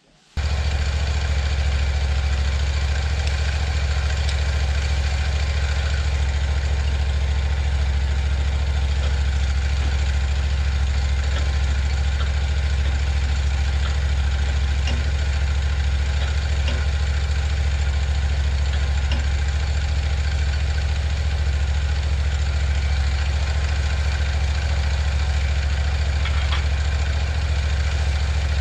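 Portable band sawmill's gasoline engine running steadily at idle, with no revving or cutting load. A deep, even hum that starts abruptly right at the beginning.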